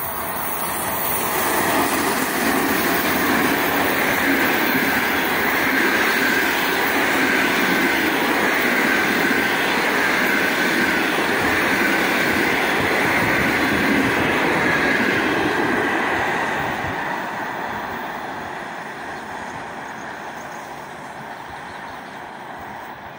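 An eight-coach passenger train hauled by an EP1 electric locomotive passes close by. Its wheel and rail noise builds over the first couple of seconds as it arrives and holds steady while the coaches run past. The noise then fades over the last several seconds as the train moves away.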